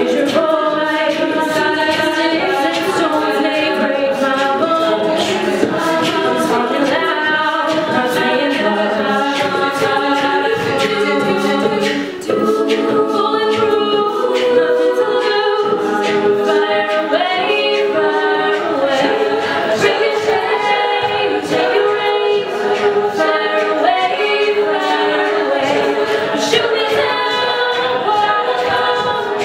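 All-female a cappella group singing an amplified pop arrangement in close harmony, with vocal percussion keeping a steady beat.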